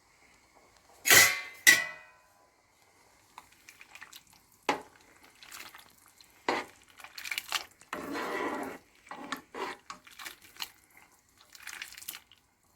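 Dishes and metal utensils being handled: two sharp ringing clinks about a second in, then scattered lighter clatters and a brief scraping stretch near the middle.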